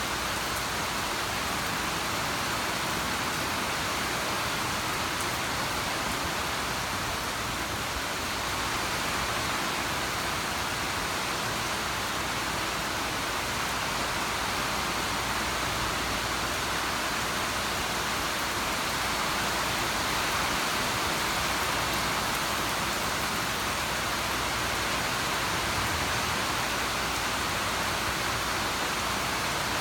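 Steady rainfall: an even, unbroken hiss of rain with no distinct drops or pauses.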